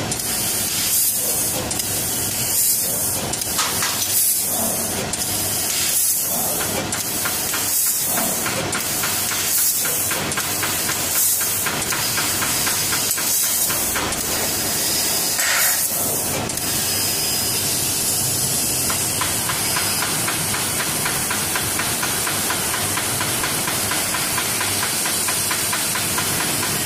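Laser tube cutting machine hissing steadily as compressed assist gas blows through its cutting nozzle onto a steel tube. Through the first half the hiss breaks off briefly about once a second, as the cut stops and restarts between short cuts. After that it runs without a break.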